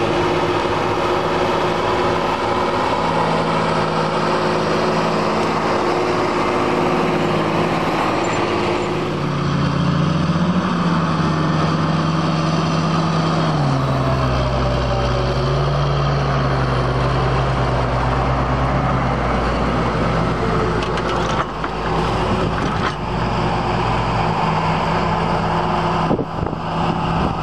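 John Deere tractor's diesel engine running steadily while pulling a Lemken plough. Its pitch rises briefly about ten seconds in, then settles to a lower, deeper note from about fourteen seconds.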